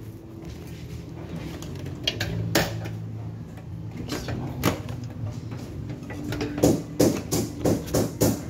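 Clicks and knocks of hard parts being handled, a few at first and then coming quickly near the end, over a steady low electrical hum that comes and goes.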